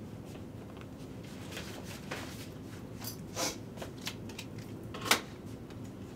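Hands rummaging in a fabric backpack: scattered small clicks and brief rustles, with one sharper, louder rustle about five seconds in, over a steady low room hum.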